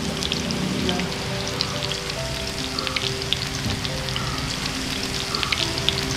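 Masala-coated fish steaks shallow-frying in hot oil in a pan, a steady sizzle with many sharp crackling pops, with background music underneath.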